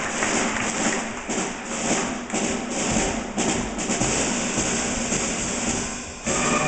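Audience clapping, a dense hand-clap din. Just over six seconds in it dies away and the orchestra begins to play.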